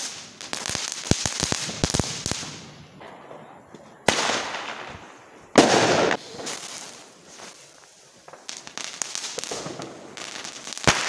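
Consumer fireworks going off: a ground firework spraying sparks with a rapid string of sharp crackling pops, then two loud rushing hisses about four and five and a half seconds in as a rocket goes up. Scattered crackles and pops follow near the end.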